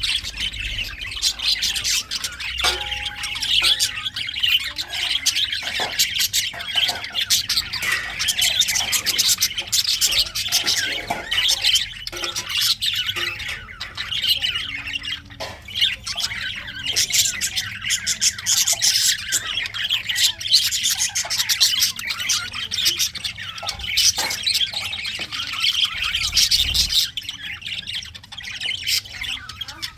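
Several male green budgerigars chirping in a dense, unbroken chatter.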